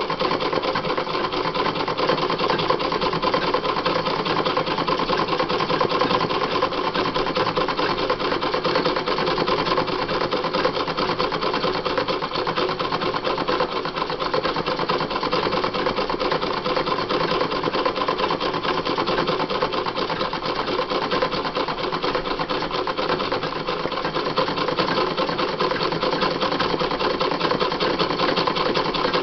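Sewing machine stitching steadily without a pause, doing free-motion embroidery as the fabric in a hoop is moved by hand under the needle.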